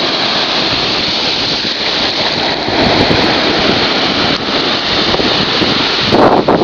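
Steady rushing of surf and wind at the beach, loud on the microphone, growing louder about six seconds in.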